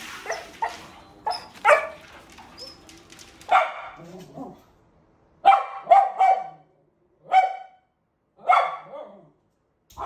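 A dog barking in short, sharp barks: a few scattered barks in the first seconds, then after a brief silence a quick run of about four barks, followed by two single barks roughly a second apart.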